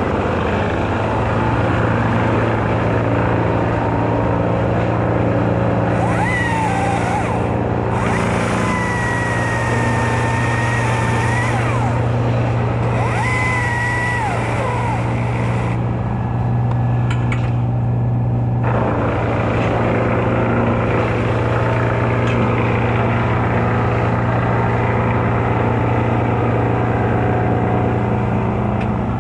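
Engine running steadily at a constant speed. From about six seconds in until about sixteen seconds, a whine and a hiss sound over it, twice breaking off briefly.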